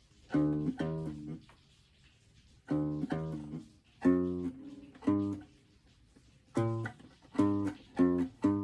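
Guitar played by hand: single strummed chords struck one at a time with short pauses between them, in a halting, unpractised rhythm.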